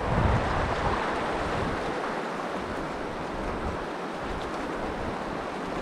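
Steady rushing of a shallow river running over a gravel and cobble riffle.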